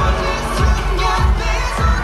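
K-pop song with singing over a steady drum beat, played loud through the event's sound system.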